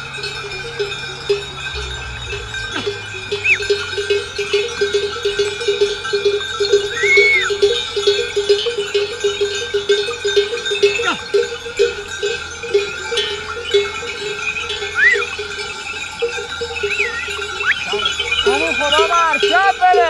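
Bells on a flock of sheep and goats clinking steadily as the animals move, with a few short high calls here and there and a bleat near the end.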